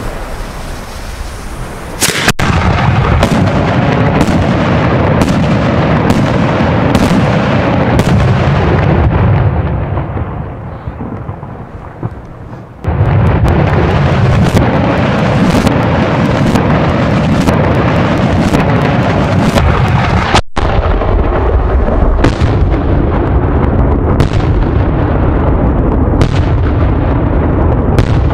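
Loud firework salute bangs from a 75mm Italian multi-salute cylinder shell, starting suddenly about two seconds in and following one another closely with heavy rumbling echo. They ease off about ten seconds in, then start again abruptly and keep going.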